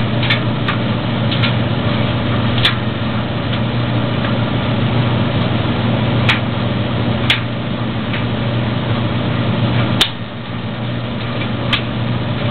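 Maytag DG608 gas dryer running with a steady low hum, with irregular sharp clicks every second or few seconds. A sharper click comes about ten seconds in, after which the running sound drops a little. The owner cannot yet say what the clicking is.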